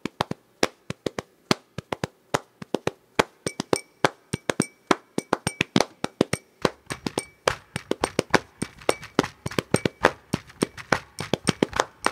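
A dense, irregular run of sharp clicks, several a second, some much louder than others, with a low hum joining about halfway through.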